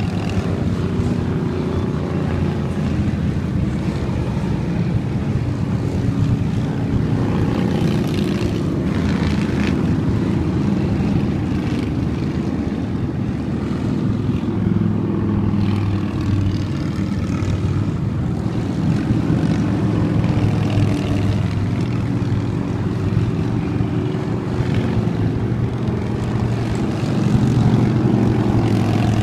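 A steady stream of motorcycles passing on the road, their engines blending into one continuous low drone that swells a little near the end.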